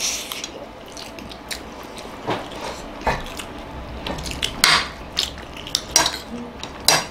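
A metal fork and spoon clink and scrape against plates of rice as people eat, in a scattered series of short clicks and scrapes.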